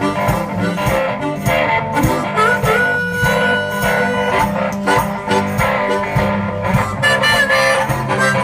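Blues music led by guitar over a steady bass line, with no singing. About two and a half seconds in, a single high note is bent upward and held for about two seconds.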